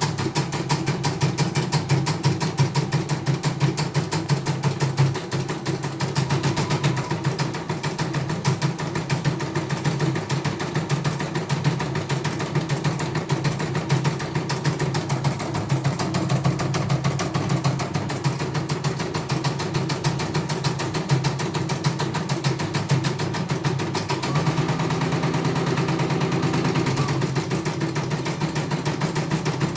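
CNY E900 computerized embroidery machine stitching at speed: a fast, even run of needle clicks over a steady motor hum, which turns steadier and fuller about three-quarters of the way through.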